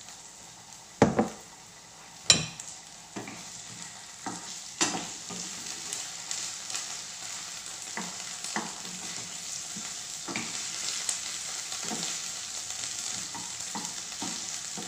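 Chopped red onion and garlic sizzling in oil in a non-stick frying pan, stirred with a wooden spatula that knocks and scrapes against the pan. Two sharp knocks come about a second and two seconds in, and the sizzling grows louder from about three seconds on.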